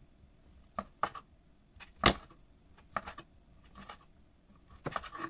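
Kitchen knife slicing through cooked turkey breast and knocking on a bamboo cutting board as each slice comes off: a series of short, sharp knocks about once a second, the loudest about two seconds in.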